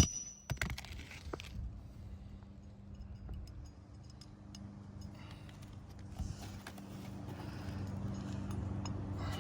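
A hammer blow on a roofing nail right at the start, then faint scraping and ticking from handling a shingle over a low steady hum that grows louder toward the end.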